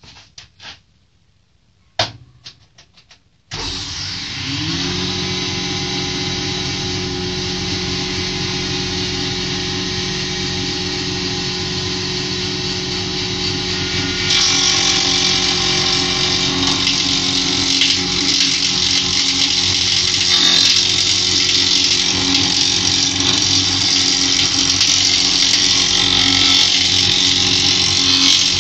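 A homemade jointer is switched on after a few knocks about three seconds in. Its motor and cutterhead spin up with a rising whine and settle into a steady hum. About halfway through, a wooden board is fed over the spinning knives, and a louder hissing planing noise lasts to the end.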